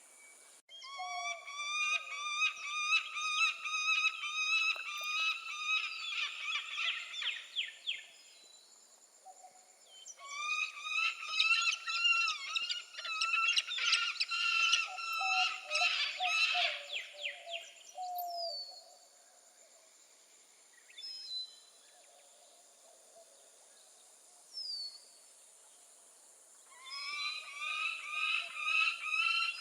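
Peregrine falcon calling in long, rapid runs of repeated notes, several a second. There are three bouts with quieter pauses between them, under a steady high hiss.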